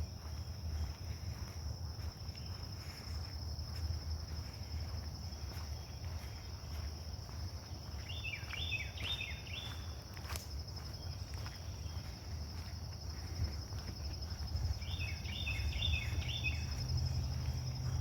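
Insects trilling in a steady, high, slightly pulsing drone over a low rumble. Twice, about eight and fifteen seconds in, a quick run of four short falling calls sounds out, and a single sharp click comes near the middle.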